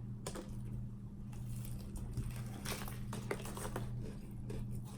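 Close-up chewing of a crunchy Cheetos-coated chicken sandwich: scattered small crunches and mouth clicks over a steady low hum.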